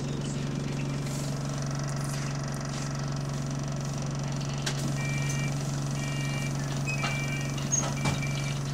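Bus engine idling, heard inside the saloon as a steady low drone. From about halfway in, a short high beep repeats about once a second.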